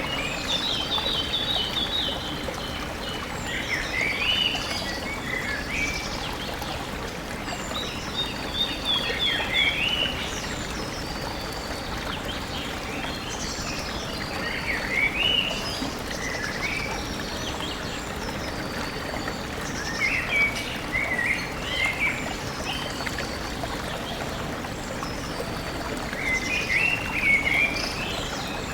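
Stream water running steadily, with a songbird singing short phrases of quick high notes that recur every five or six seconds.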